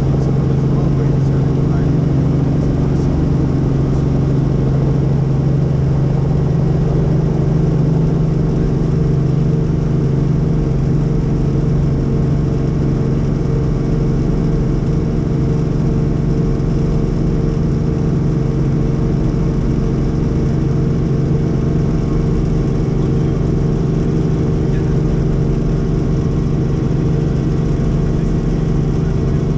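Helicopter engine and rotor noise heard from inside the cabin: a loud, steady low drone with a fast flutter underneath.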